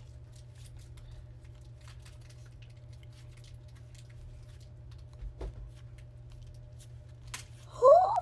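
Trading cards being slid and flicked through in the hands: soft, scattered little clicks of card against card over a steady low hum. Near the end there is a sharp click, then a girl's loud, rising squeal of excitement.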